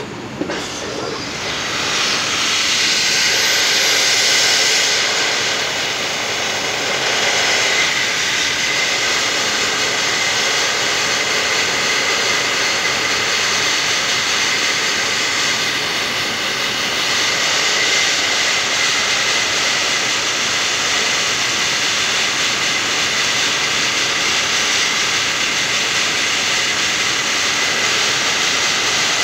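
Compressed-air abrasive blasting with ground organic grit (lignoblasting) on aluminium parts: a loud, steady rushing hiss from the blast nozzle that builds over the first couple of seconds and then holds.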